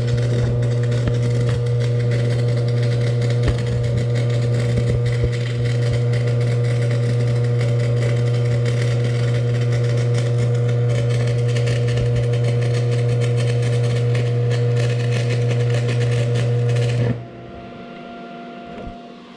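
Stick welding with a Vulcan Commander 225 transformer arc welder, running a stringer bead. The electrode arc crackles and buzzes steadily with a strong low hum, then stops about three seconds before the end, leaving a much fainter hum.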